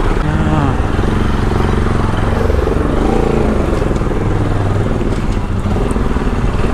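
Motorcycle engine running as the bike is ridden, its pitch rising about half a second in as it accelerates and rising and falling again around three seconds in.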